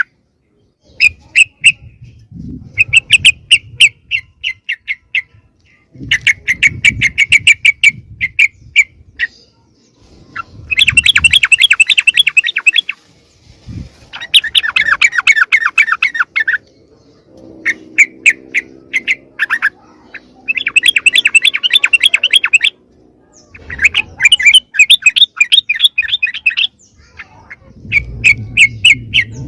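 Yellow-vented bulbuls (trucukan) giving loud, noisy chattering calls: bursts of rapid notes a few seconds long, repeated with short pauses between. This is the kind of excited group chatter used as a lure call to draw other bulbuls in.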